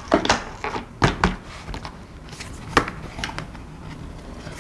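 A cardboard gel-polish set box being handled, its sleeve lifted, giving a few short taps and knocks spread over several seconds.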